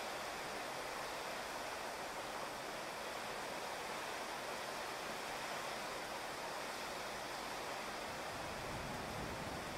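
Steady rain falling on a wet street, grass and paving: an even hiss with no breaks. A low rumble comes up under it near the end.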